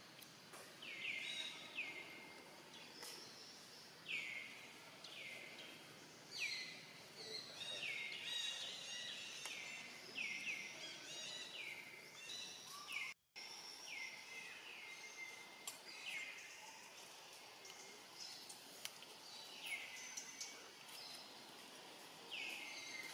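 Birds calling: short high calls that drop sharply in pitch and then level off, repeated over and over, sometimes two at once, over a faint steady background hiss. The sound cuts out for a split second about 13 seconds in.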